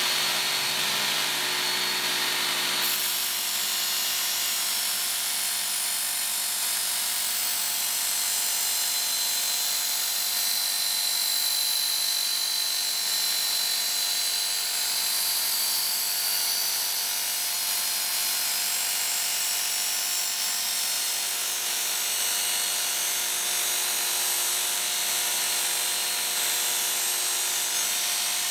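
Work Sharp Ken Onion Edition electric belt sharpener running, its coarse-grit belt grinding the steel edge of a machete. A constant motor whine under a steady grinding hiss that grows louder about three seconds in.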